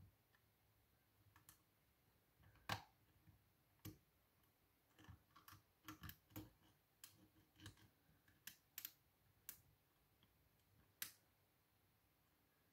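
Faint, irregular metallic clicks and ticks of a hook pick and tension wrench working the pins inside a pin-tumbler lock cylinder, the pins clicking as they are lifted and set. The clicks are scattered, with one louder one about three seconds in and a steady run of them through the middle.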